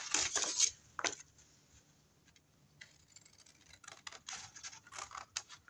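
Scissors snipping through cardstock, with paper rustling as it is handled: a burst in the first second, a pause, then more snips and rustles after about three and a half seconds.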